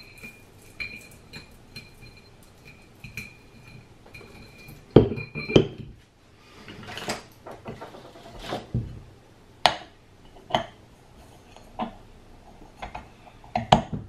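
Metal knocks and clinks as a Ninebot Mini Pro hub motor is put back together: two loud knocks about five seconds in, then scattered lighter clicks and taps as the end cover is fitted.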